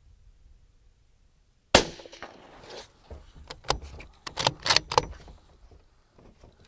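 One shot from a suppressed bolt-action .223 rifle about two seconds in, a sharp crack that dies away over about a second. About a second later comes a quick run of metallic clicks as the bolt is worked to eject the spent case and chamber the next round.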